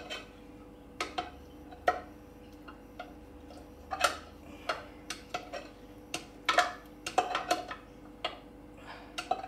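A utensil scraping and knocking against a cooking pot as sticky risotto is scraped out into a bowl: about a dozen irregular clinks and taps over a faint steady hum.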